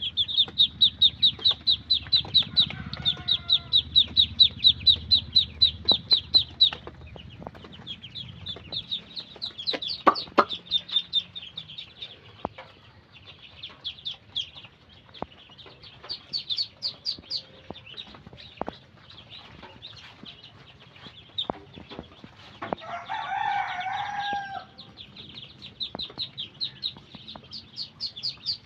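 A group of ducklings peeping, rapid high-pitched cheeps one after another, loudest and most continuous in the first seven seconds. About 23 seconds in, a single longer, lower call sounds over them, with scattered light knocks throughout.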